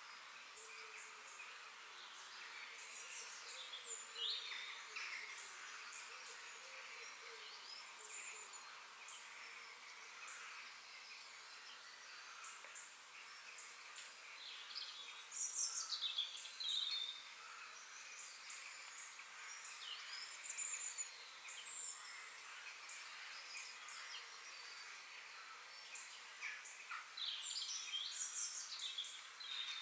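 Songbirds chirping and calling in a busy chorus of short, quick notes, with louder, sharper calls about halfway through and again near the end, over a steady high background hiss.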